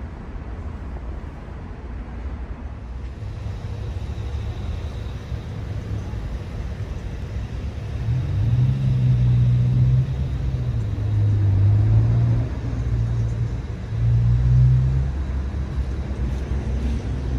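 Car engines running at low speed close by: a low hum that grows louder about eight seconds in.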